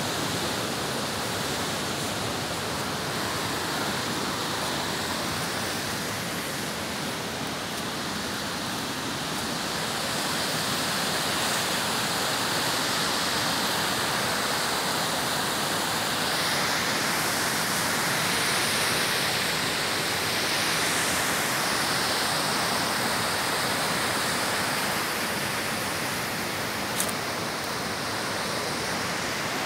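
Small woodland waterfall and stream rushing steadily over rocks, swelling slightly in the middle. One brief click near the end.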